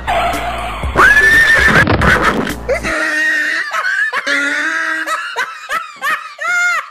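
Comedy sound effect of a horse whinnying, added over the skit. It opens with a rush of noise, then about a second in a long high call rises and holds. From about three seconds on, a quavering run of shorter neighs follows and grows quicker towards the end.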